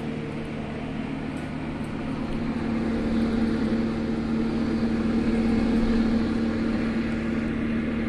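Small electric fan motor running inside a homemade air-conditioner unit, a steady hum with a rush of air that grows a little louder about two and a half seconds in.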